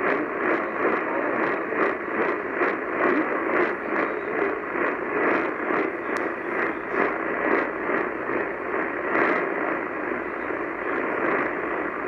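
AM radio tuned to 890 AM playing steady static hiss, with faint regular clicks of interference a few times a second.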